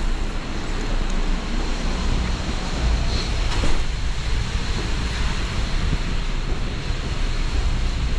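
Subway train rumbling in the station: a steady, loud low rumble with a hiss over it, swelling slightly a few seconds in.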